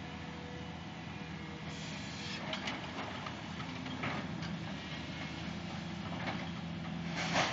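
Hydraulic excavator's diesel engine running steadily as it demolishes a brick building, with several crashes and clatters of falling masonry and debris, the loudest near the end.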